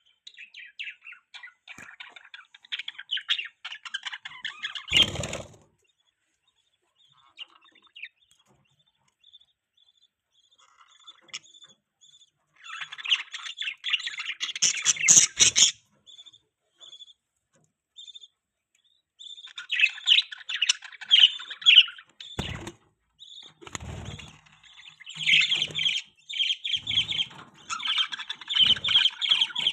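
Pet budgerigars chattering and chirping in fast, high bursts of warbling, with quiet pauses between the bursts. A few short dull thumps come through, one about five seconds in and several more near the end.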